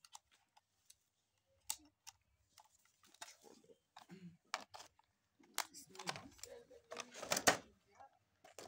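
Scattered plastic clicks and rattles as batteries and a toy RC car's plastic parts are handled, with a cluster of knocks and rustling about six to seven and a half seconds in.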